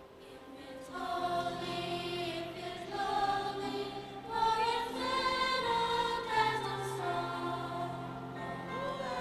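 High school concert choir singing slow, held chords in several parts, swelling in about a second in after a soft start.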